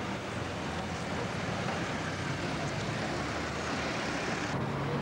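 Steady running noise of a motor vehicle: a low engine hum under an even rush of road noise.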